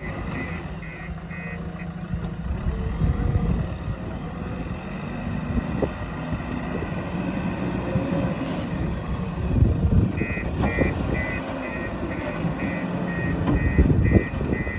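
Diesel engine of a backhoe loader running steadily under load, with a few knocks. An electronic reversing alarm beeps in an even rhythm briefly at the start and again from about two-thirds of the way through.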